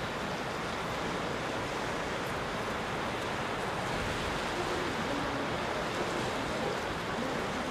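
Sea surf washing over a rocky shore, a steady rush with no distinct breaks.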